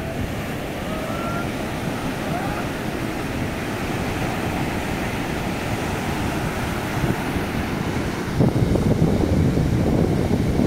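Sea surf breaking and washing up the shore in a steady rush, with wind buffeting the microphone; the rumble grows louder about eight seconds in.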